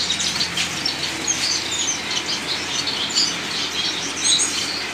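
Many small caged finches chirping at once, a continuous scatter of short, high calls overlapping one another.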